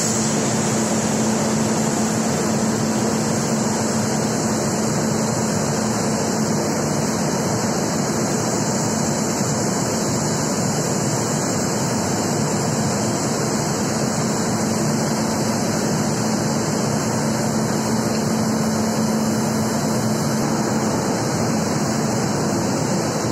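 Steady, unchanging hiss with a low hum underneath from a standing WAG-9 electric locomotive's auxiliary machinery running.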